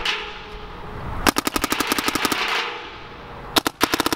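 Paintball marker fired in two rapid strings of sharp pops, one about a second in and a shorter one near the end, at a crazy fast rate of more than a dozen shots a second.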